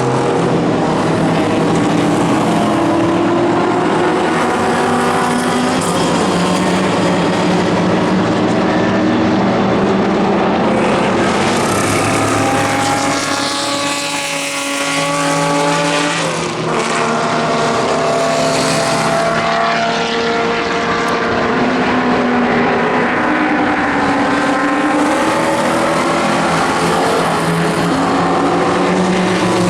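Several historic sports racing cars running hard with overlapping engine notes. About halfway through, one passes with a falling pitch and the sound dips briefly before the engines build again.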